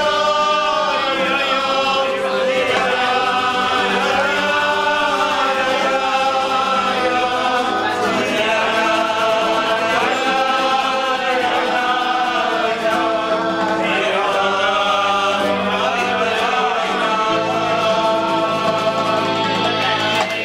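A group of male voices singing a song together, accompanied by acoustic guitar and electric keyboard.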